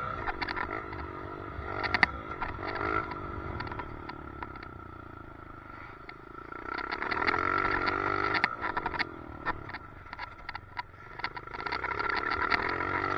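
Dirt bike engine revving up and down as it is ridden, with a steady high whine and frequent clicks and rattles from a loose helmet chin mount.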